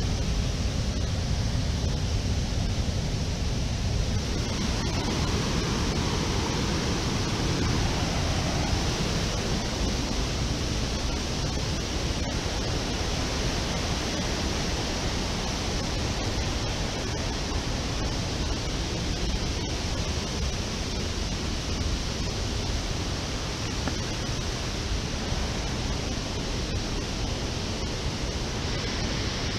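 A large river waterfall, its water rushing in a steady, unbroken noise.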